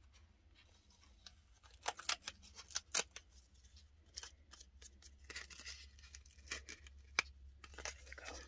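Backing being peeled carefully off a roll of washi sticker tape, with faint crackling and scattered sharp ticks of paper and tape being handled; they come thicker after the first couple of seconds.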